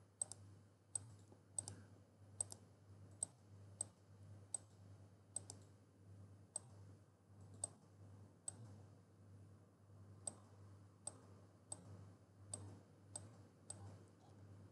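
Faint computer mouse clicks at an even pace, a little more than one a second, each click placing another point of a path being traced on a map. A low steady hum lies underneath.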